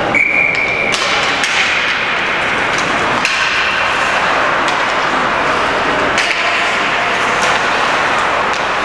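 Ice hockey in play: sharp clacks of sticks and puck on the ice and boards over steady arena noise, with a short, steady high tone near the start and another about three seconds in.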